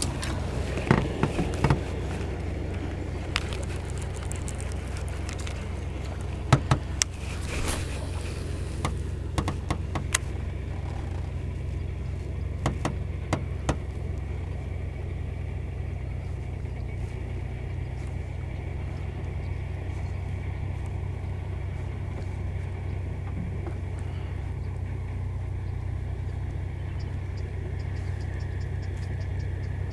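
Boat motor running with a steady low hum. Scattered clicks and light knocks over the first dozen seconds or so, then only the hum.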